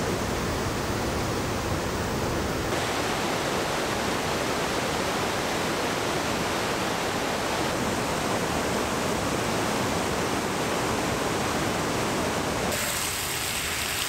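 Waterfall's steady rush of falling water. Its tone changes abruptly about three seconds in and again near the end.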